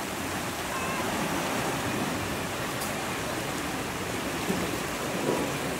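Water rushing out through a concrete dam's sluice gates: a steady, even rush.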